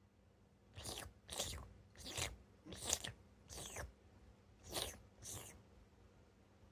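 Cat licking herself while grooming: seven loud, wet tongue strokes about half a second to a second apart, with a longer pause just before the last two.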